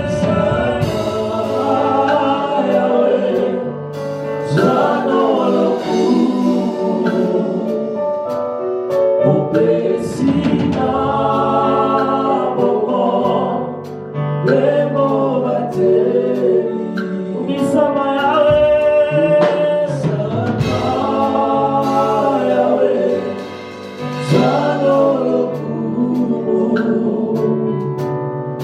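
Gospel worship song: a lead singer and choir singing over keyboard and bass.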